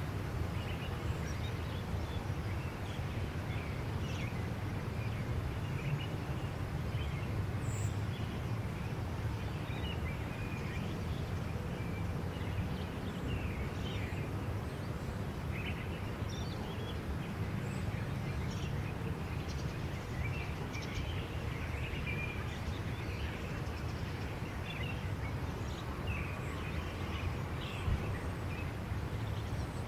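Outdoor ambience: a steady low background rumble with faint bird chirps scattered through it, and a single short knock near the end.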